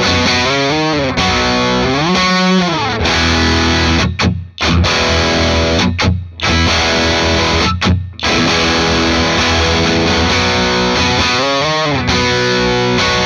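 Electric guitar played through a Greer Southland Harmonic Overdrive pedal, switched on, into a hand-wired AC15 amp with a Celestion Greenback speaker. It plays overdriven chords and bent notes, with three short stops about four, six and eight seconds in.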